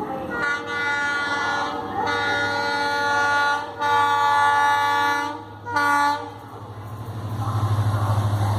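WDP4 diesel locomotive's air horn sounding several long blasts, then a short one about six seconds in. After that the train's rumble and rhythmic wheel clatter grow louder as it approaches.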